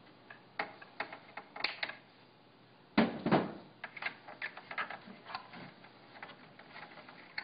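Hands working inside the open plastic case of a Uniwell SX8505 cash register, tucking wiring and handling pliers: scattered small clicks and rattles, with one louder knock and scrape about three seconds in.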